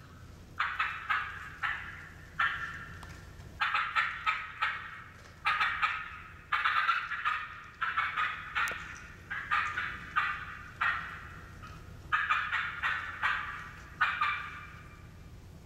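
Turkey call worked by a contest caller, imitating the cutting of an excited hen: fast, sharp clucks and cutts in quick clusters of several notes with short pauses between.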